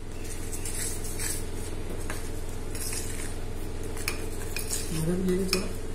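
Metal spoon scraping and clinking against a stainless steel bowl while stirring dhokla batter, over a steady low hum.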